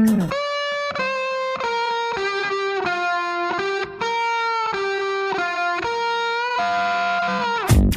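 Background music: the beat drops out and an electric guitar plays a melody of held notes, some bending at the ends. The drums come back in right at the end.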